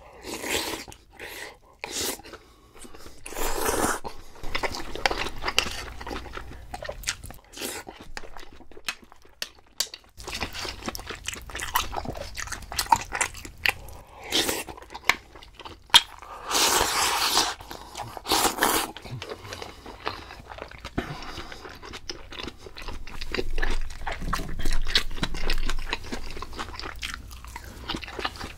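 Close-miked eating: a person biting and chewing food, with many small clicks and several louder noisy bursts.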